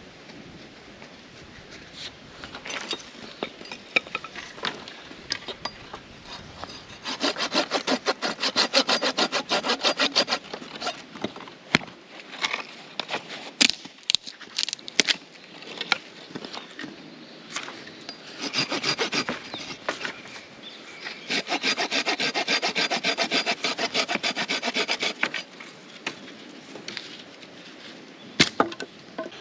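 A hand saw cutting through wood in two long bouts of rapid back-and-forth strokes. Between the bouts there are scattered knocks and handling sounds.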